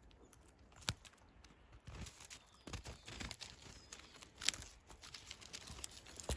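A Shiba Inu tearing and rustling bamboo grass leaves with its mouth while stepping in snow, with a few sharp clicks among the rustling.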